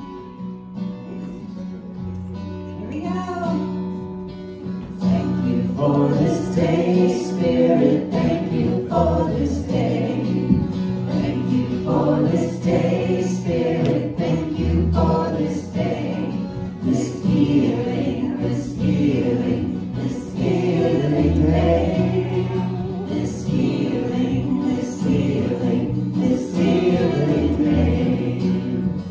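Live worship song: several voices singing together over acoustic guitar and sustained low accompaniment, swelling up over the first few seconds.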